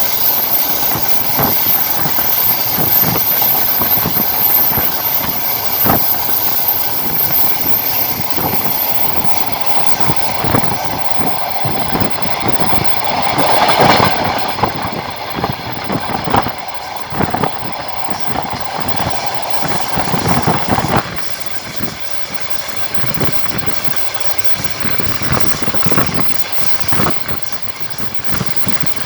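Train wheels rolling and clacking over the rail joints, heard from on board the moving train, with steady rolling noise. A high steady whine sounds over it and stops about twelve seconds in.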